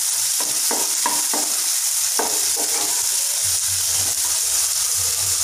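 Sliced onions sizzling steadily in hot oil in a non-stick kadai, with a wooden spatula stirring and scraping them in repeated strokes, most often in the first few seconds.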